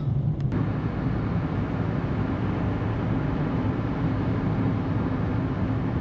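Steady road and engine noise inside the cabin of a moving Kia Ray: a low rumble with tyre hiss over it, and a faint steady hum coming in about halfway through.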